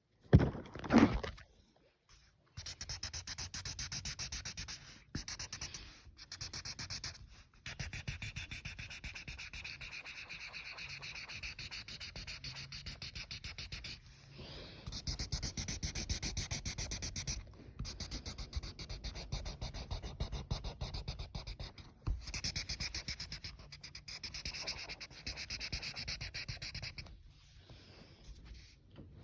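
Rapid back-and-forth coloring strokes of a drawing tool rubbing on paper, in runs of a few seconds that stop and restart. A short loud burst of noise comes just after the start.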